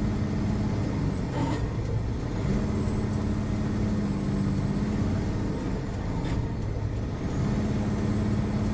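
Pickup truck's engine and road noise inside the cab while driving in snow, a steady low drone that drops away and returns twice. Two brief swishes, about a second and a half in and near six seconds.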